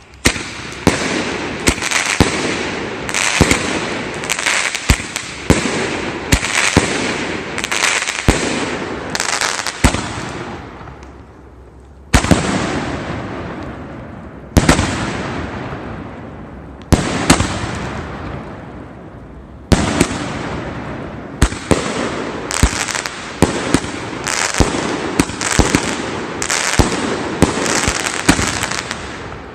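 A 500-gram, 30-shot "Weaver of Dreams" fireworks cake firing: a long string of sharp shots and aerial bursts, some in quick runs, each trailing off into a fading hiss. Gaps of about two seconds fall around the middle.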